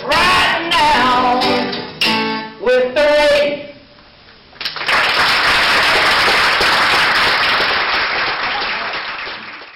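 Closing bars of a song sung to acoustic guitar, ending on a held sung note that fades about three and a half seconds in. After a brief pause, audience applause starts about five seconds in and carries on to the end.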